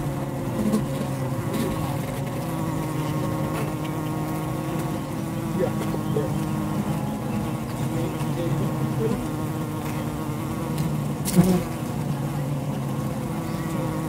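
Honeybee colony humming steadily, picked up by a microphone inside the hive among the combs: a dense drone of many overlapping pitches. A few faint knocks sound over it, the loudest about three-quarters of the way through.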